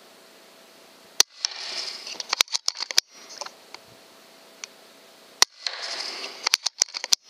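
Two sharp shots from an FX Impact PCP air rifle, about four seconds apart. Each is followed by about a second of noisy rustle and a quick run of clicks.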